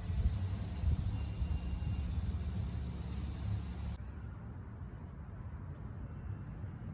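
Steady high-pitched insect trilling over a low, constant rumble of lawn mowing. The insect sound drops off sharply about four seconds in.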